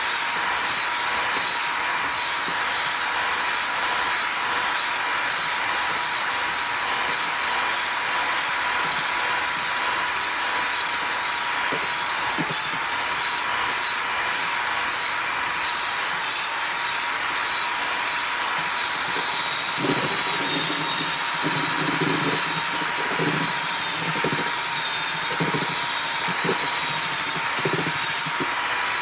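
Electric drill with a mixer attachment running steadily, churning a batch of dirt and fertilizer, its motor giving a thin steady whine that wavers a little. About two-thirds through, a lower, uneven rattle joins in.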